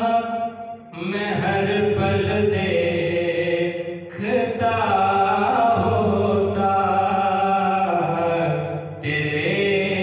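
A man reciting an Urdu naat into a microphone: unaccompanied devotional singing in long, held, gliding notes, with brief pauses for breath about a second in and about four seconds in.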